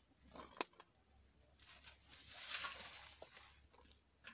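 A plastic bucket of composted chicken-coop soil and broken-down leaves is tipped into a compost bin: a single knock of the bucket, then about two seconds of the material pouring and rustling out.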